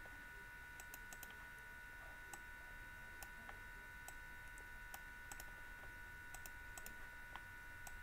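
Faint, irregular clicks and taps of a stylus on a drawing tablet as diagram arrows are drawn, over a faint steady electrical whine.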